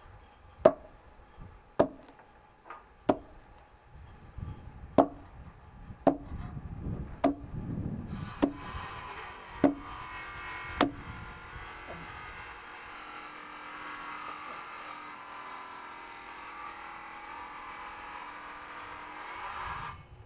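An axe splitting firewood on a chopping block: about nine sharp chopping strikes roughly a second apart over the first eleven seconds. From about eight seconds in, a steady mechanical hum with a wavering pitch joins the chopping and carries on until it cuts off suddenly near the end.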